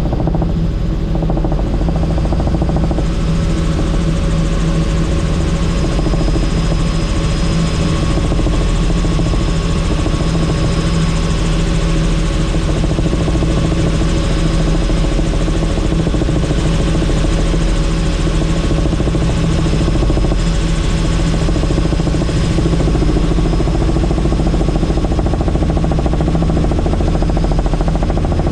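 Helicopter in steady flight, heard from on board: a constant low rotor and engine drone with a thin steady high whine, over an even rush of air.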